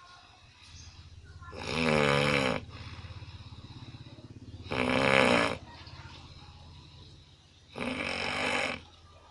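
A person snoring loudly: three long, rasping snores about three seconds apart, with a low steady hum between them.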